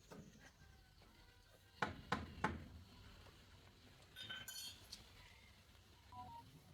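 Three sharp knocks of hard objects in quick succession, then a short ringing metallic clink.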